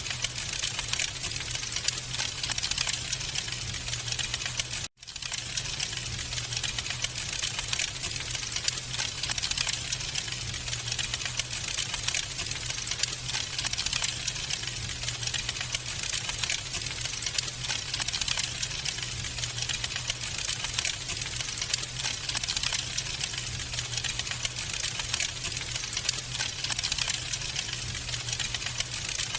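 Wood fire in a fireplace crackling, a dense, steady stream of small pops and snaps over a low, even undertone. The sound cuts out for an instant about five seconds in.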